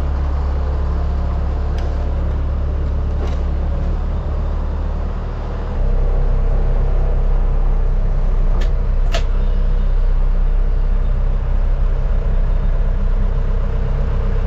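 John Deere 3800 telehandler's diesel engine running steadily, a low hum that grows louder from about six seconds in, with a few short clicks along the way.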